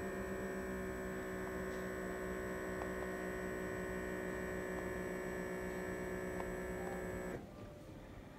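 An Omron HBP-9020 arm-in blood pressure monitor's air pump running with a steady hum as it inflates the arm cuff. It cuts off abruptly near the end, once the cuff reaches full pressure at about 160 mmHg.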